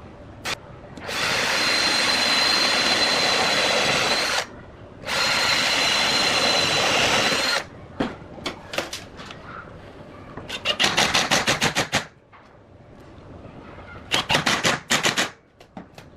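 Power tool running in two bursts of about three seconds each, with a steady high whine, then two short runs of rapid clicking at about ten a second.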